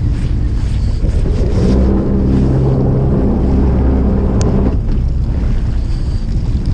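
Fishing boat's engine running, with wind buffeting the microphone. A low pitched hum swells for about three seconds in the middle, and a single sharp click comes about four seconds in.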